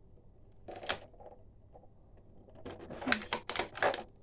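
Stiff plastic blister packaging clicking and crackling as it is worked open: one short crackle about a second in, then a fast, irregular run of sharp clicks near the end.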